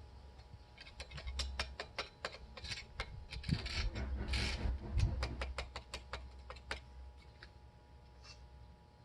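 An irregular run of sharp clicks and taps, a few a second, with two short scraping sounds in the middle; it thins out after about seven seconds.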